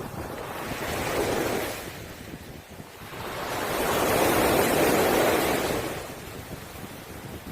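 Sea waves washing in and breaking on a pebble beach. A small wave surges about a second in, then a bigger one swells and breaks midway and slowly drains away.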